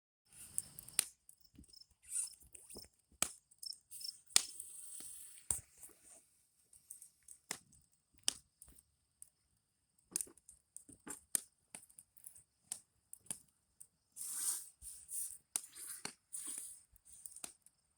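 Irregular sharp clicks and knocks, with two brief hissing bursts near the end, over a steady high-pitched insect drone.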